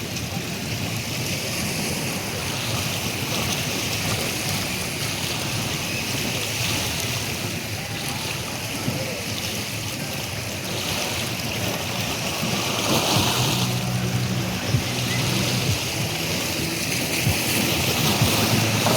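Sea waves washing steadily, with wind noise on the microphone.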